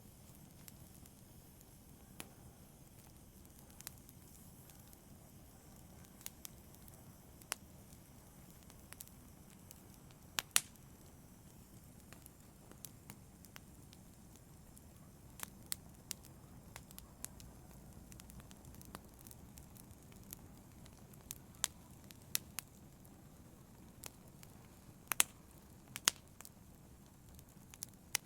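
Wood fire burning in a fireplace: a low steady rumble of flames with irregular sharp crackles and pops, the loudest snaps about ten seconds in and near the end.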